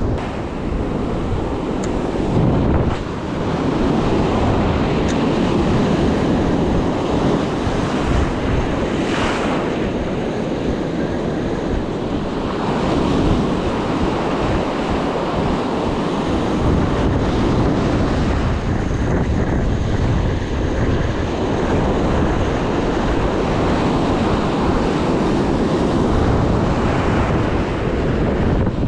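Ocean surf washing on a beach, with wind buffeting the microphone in a loud, steady rumble.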